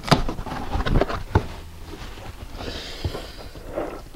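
Cardboard shipping box being handled and pulled open by hand: a few sharp knocks in the first second and a half, then a longer rustling rush from the flaps.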